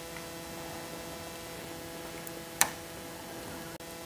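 Steady hum, a few even tones held level throughout, with a single sharp click about two and a half seconds in.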